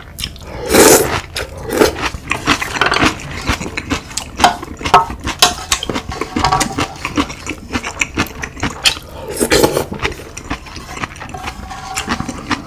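Close-miked eating sounds: chewing with many small wet clicks, and a few louder bursts about a second in, near two seconds and near ten seconds.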